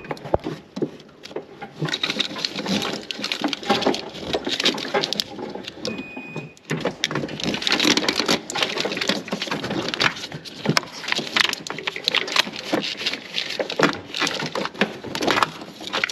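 Wiring harness in corrugated plastic loom being pushed by hand through a truck's firewall grommet: continuous rustling, scraping and irregular clicking of plastic loom and wires against rubber and sheet metal.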